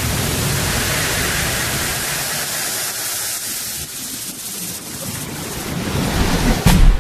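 A white-noise sweep in an electronic dance track: a wash of noise with no beat, dipping in the middle and swelling toward the end, where a heavy bass hit brings the track back in.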